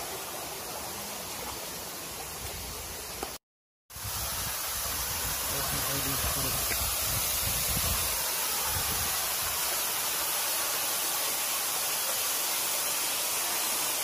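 Steady rush of a waterfall. It cuts out briefly a little over three seconds in, then comes back louder.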